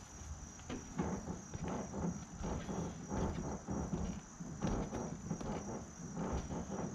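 Irregular knocks and footfalls as a man climbs the rear ladder of a truck camper onto its roof, with a steady high tone behind.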